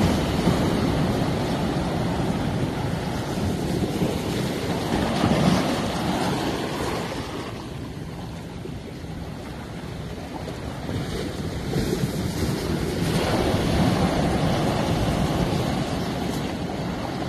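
Small waves breaking and washing through large boulders at the shoreline, foaming surf that swells, eases off in the middle and surges again after about thirteen seconds.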